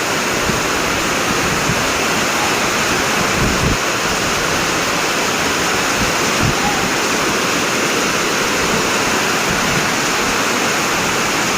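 Heavy rain falling steadily in a storm, a loud even wash of water noise.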